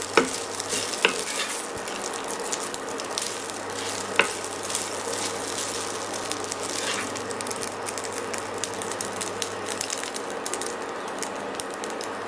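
Rice sizzling as it fries in a nonstick pan while a wooden spatula stirs and tosses it, with a steady crackle of small clicks. A few sharper knocks of the spatula on the pan come in the first few seconds.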